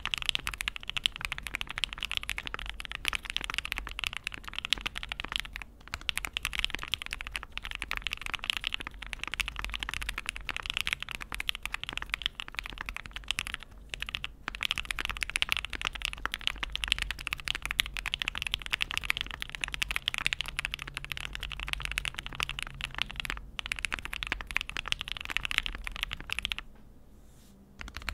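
Fast, continuous typing on a mechanical keyboard with aftermarket keycaps: a dense run of keystroke clacks with a few short pauses, stopping shortly before the end.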